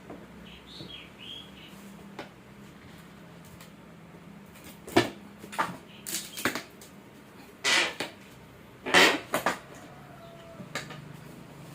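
Monitor packaging being handled during unboxing: a run of short scrapes and rustles of cardboard or plastic, the loudest two about eight and nine seconds in.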